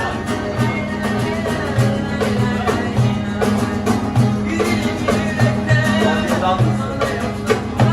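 Music: plucked string instruments over a steady, regularly pulsing bass line.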